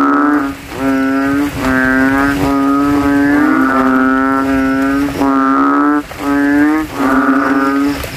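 Asian painted frogs (banded bullfrogs, Kaloula pulchra) calling in a chorus: low, droning, bass-heavy calls of about a second each, one after another with barely a break, several frogs overlapping at slightly different pitches. These are males competing to call the loudest in a breeding chorus after rain.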